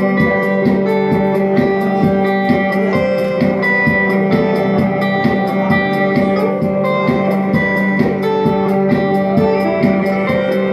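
Electric guitar played live through an amplifier: a steady run of quick picked notes over a held low tone.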